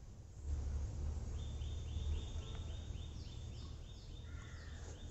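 Bird chirps in a rapid series of short, falling notes, about five a second, starting a little over a second in; a second, higher series joins partway through. Underneath runs a low rumble, the loudest part.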